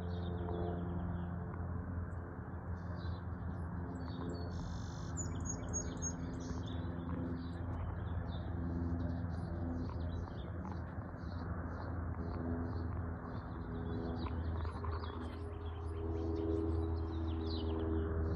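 Cessna 172 Skyhawk's piston engine and propeller droning steadily overhead, a low even hum. Birds chirp throughout.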